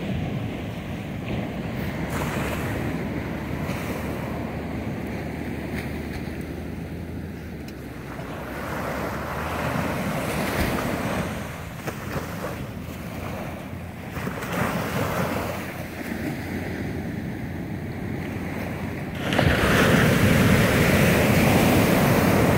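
Small ocean waves breaking and washing up a sandy beach, the rush swelling and falling with each wave, with wind buffeting the microphone. The sound grows much louder near the end.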